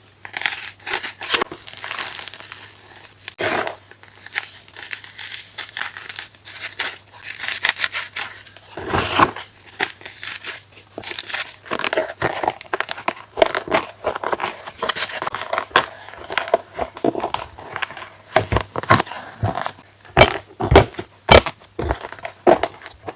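Close-miked crunching and crumbling of chalk chunks: a dense, irregular run of sharp crackles and crunches, with louder cracks about nine seconds in and again near the end.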